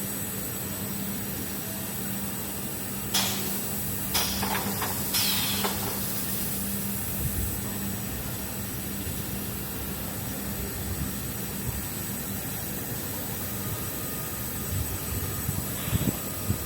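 Automatic SPC flooring packing machine running: a steady mechanical hum with a few short, sharp clacks or hisses about three to six seconds in and once more near the end.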